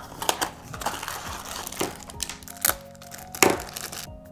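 Cardboard blind box and its plastic packaging being opened by hand: irregular crinkling and sharp rustles, the loudest about three and a half seconds in, over background music.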